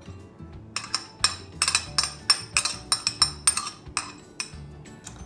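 Spoon tapping and clinking against a bowl in a quick, irregular run of sharp taps lasting about three and a half seconds.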